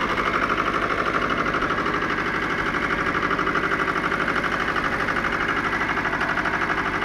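Pasquali 996 tractor's Lombardini LDA 672 air-cooled diesel engine running steadily at a constant speed, with a rapid, even firing beat.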